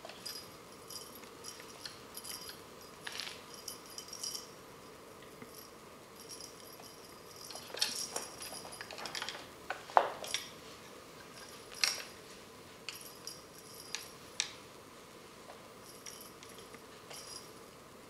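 A kitten batting a small hanging toy on a string, making light jingling and rattling clicks in spells, with knocks of the toy and paws against a wooden chair leg and floor. Several sharper knocks, the loudest about ten seconds in.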